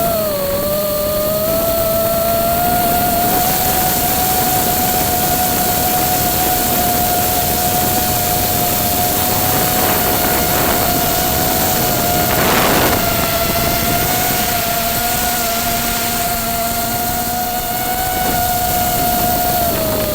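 FPV quadcopter's electric motors and propellers whining steadily under a haze of rushing air. The whine dips in pitch briefly just after the start and again at the very end. A short rush of noise comes about twelve seconds in.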